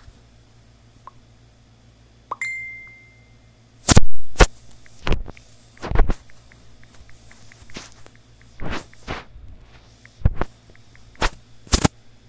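A single ding about two seconds in, then about nine loud, sudden thumps at uneven intervals, with faint ticks between them.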